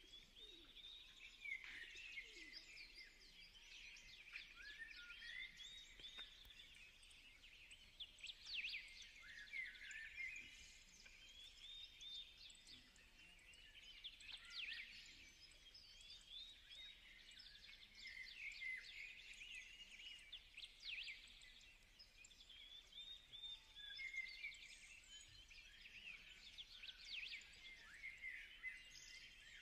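Faint, continuous chirping and twittering of small birds.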